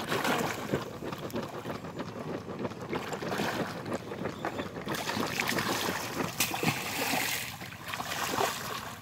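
Water sloshing and splashing around several people wading chest-deep through a pond, with irregular splashes throughout and a louder splash near the end as a large fish thrashes in their hands.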